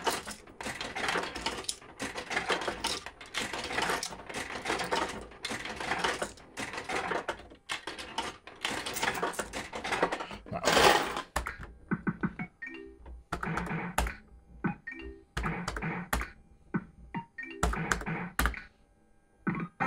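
Fruit machine sounds: rapid clicking and clatter for about eleven seconds, then a string of short electronic beeps and tones with clicks between them.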